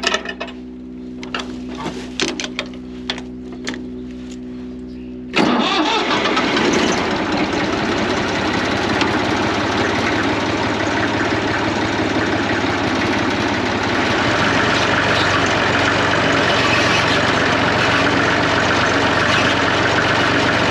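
Massey Ferguson 35 tractor being started: a steady whirring with irregular clicks while the engine is cranked for about five seconds, then the engine catches suddenly and runs on loudly and steadily.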